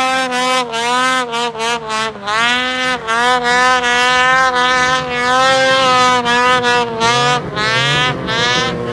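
Two-stroke snowmobile engine running at high revs, its pitch rising and falling as the throttle is worked, with several quick dips where the throttle is eased off. Near the end the pitch sags and the engine note turns rougher.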